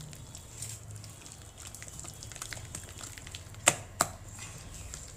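Moong dal batter being beaten by hand in a steel bowl: soft squishing and slapping, with two sharp clicks a little after three and a half seconds in.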